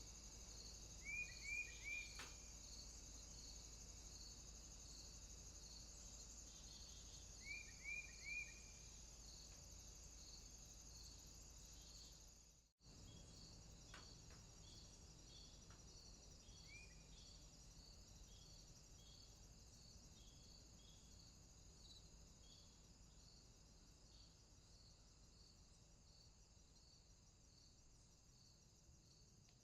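Faint crickets chirping in a steady pulsing rhythm over a continuous high insect buzz, with two sets of three quick chirps, about a second in and again some seven seconds later. The sound drops out for an instant just under halfway through, then fades slowly toward the end.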